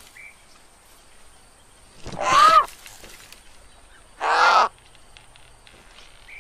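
Two short animal calls, each about half a second long and some two seconds apart, the pitch rising and then falling within each call.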